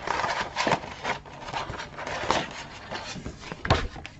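Paper rubbing and rustling as a cut paper tab is worked into a slit in the album, with a few sharp taps and a heavier thump about three and a half seconds in.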